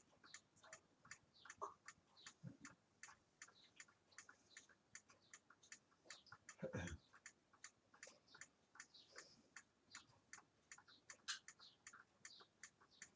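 Near silence with a clock ticking steadily, and a single soft low knock a little past halfway through.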